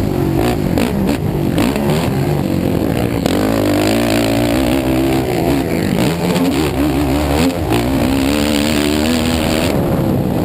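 Sport ATV's engine being ridden hard on a dirt motocross track, its pitch climbing and dropping again and again as the throttle is opened and closed.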